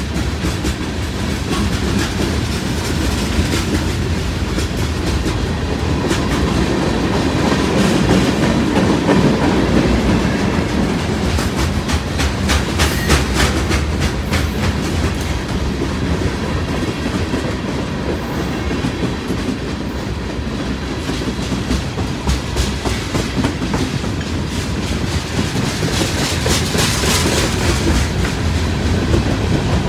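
BNSF manifest freight train of tank cars and covered hoppers rolling past: a steady rumble of steel wheels on rail with clickety-clack over the rail joints. Runs of sharper clicks come about halfway through and again near the end.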